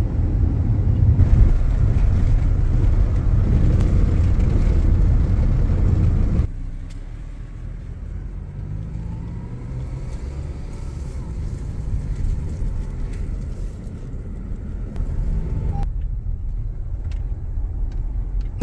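Road noise inside a moving 2014 Honda CR-V's cabin, a steady low rumble. It drops suddenly to a quieter hum about six seconds in.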